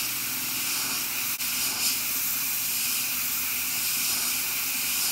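Airbrush spraying white paint at low air pressure: a steady hiss of compressed air through the nozzle.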